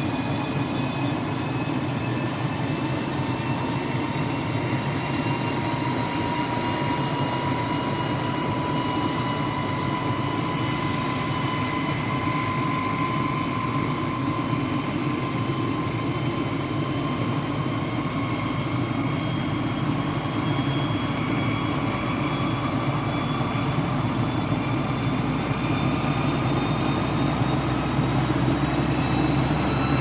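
Helicopter starting up. Its engine whine climbs slowly and steadily in pitch over a constant low rumble, and the deepest part of the rumble grows in the second half as it spools up.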